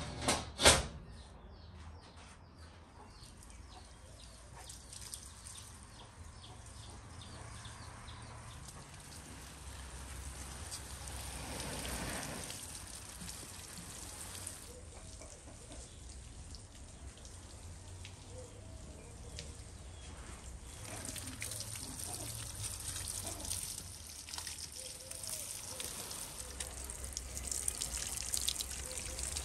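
Faint water trickling and dripping, growing louder near the end, with two sharp knocks right at the start.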